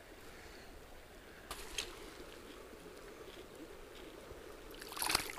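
Faint flowing river water with a couple of soft knocks. Near the end comes a brief, louder splash as a hand lets a smallmouth bass go in a shallow pool.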